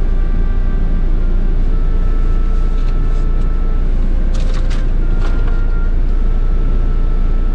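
Steady low rumble of a car's engine and road noise heard from inside the cabin while driving. A few light clicks come a little past halfway through.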